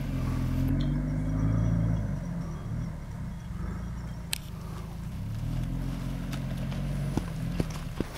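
Toyota 4x4's engine revving under load as it climbs a steep muddy slope. Its pitch rises and falls twice, loudest in the first couple of seconds. A few sharp knocks come in the second half.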